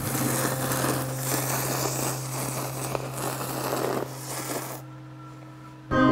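Ramen noodles and broth being slurped noisily in long, loud slurps that stop about five seconds in.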